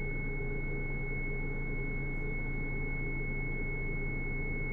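Steady cockpit drone of the DA50 RG's engine at idle power, heard through the intercom, with a constant high thin tone over it.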